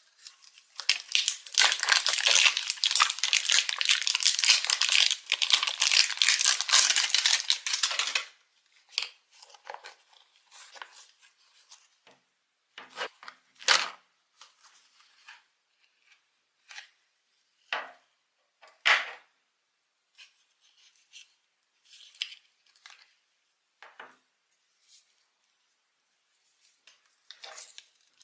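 Toy packaging being torn open: continuous tearing and crinkling for about seven seconds, then scattered short crinkles and handling noises.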